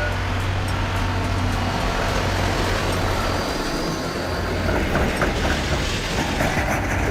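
Commuter train running, a steady low hum under continuous rail noise.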